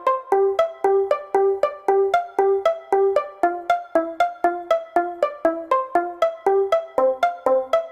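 Light, bouncy comedy music: a run of short, separate notes at about four a second, each struck sharply and fading fast, stepping up and down through a repeating little tune.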